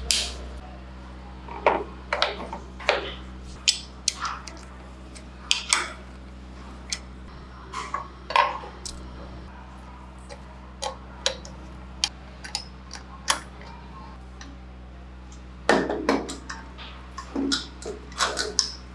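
Scattered sharp metallic clicks, taps and clinks of hand tools on steel engine parts as a vintage Vespa two-stroke engine is reassembled: a screwdriver on the clutch, a spanner on the cover bolts, the cylinder being fitted over the piston. A busier run of knocks comes near the end, over a low steady hum.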